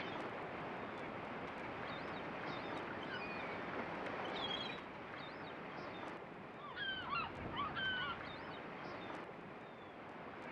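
Outdoor ambience: a steady rushing noise with birds calling over it, the calls thickest and loudest about seven to eight seconds in.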